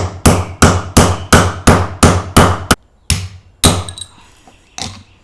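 Hammer striking a punch set in a bicycle chain link to drive out the link's pin: a quick run of metal-on-metal blows, about three a second, then a short pause, two more blows and a lighter one near the end.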